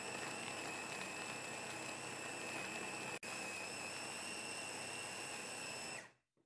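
Electric blender running steadily with a high whine, grinding the ingredients, then switching off about six seconds in.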